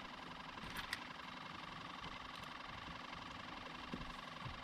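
Faint, steady motor hum, with a few short clicks at the start and about a second in.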